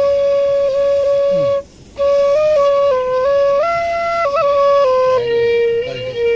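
Bansuri flute playing a slow melody. A long held note breaks off briefly for a breath about two seconds in, then the tune steps up and down between held notes and settles on a lower note near the end.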